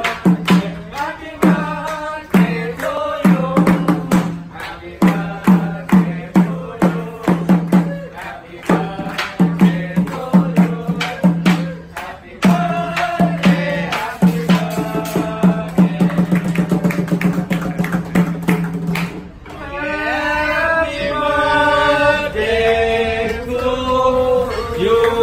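A group clapping and chanting to a fast percussive beat, then switching to singing a birthday song about twenty seconds in.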